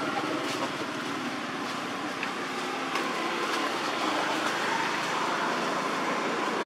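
Steady outdoor background noise with a few faint light ticks; no monkey calls stand out.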